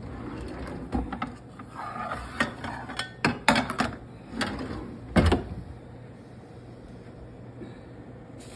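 A pull-out cabinet drawer sliding and metal pans and lids clattering and knocking as a skillet is fetched. There are several knocks, the loudest a little after five seconds in, then it goes quieter.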